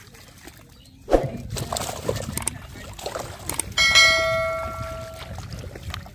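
Muddy water sloshing and splashing, with a sharp knock about a second in. About four seconds in a single bell-like metallic ring sounds and rings out for about a second and a half.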